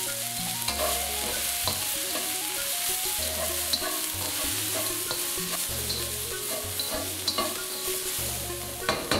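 Sliced shiitake mushrooms and scallions sizzling in hot oil in a wok, stirred and tossed with a slotted spatula that scrapes and taps against the pan now and then.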